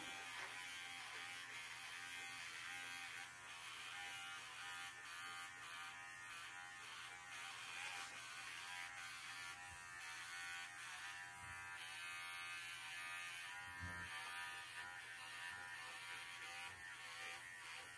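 Arco cordless pet clipper running with a steady buzz as it shaves through a standard poodle's curly coat on the flank and hindquarters.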